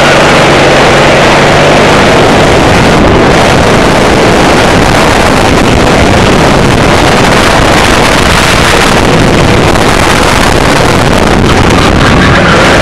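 Racing kart's engine running under load at speed, heard from the driver's seat. It is loud and harsh, with wind buffeting on the onboard microphone mixed in. A faint engine note stands out at the start and again near the end.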